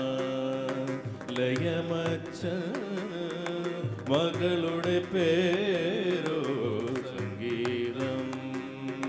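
Live band playing a Carnatic-style Malayalam song: a male voice sings ornamented, wavering melodic lines over keyboard, electric guitar and hand-drum beats.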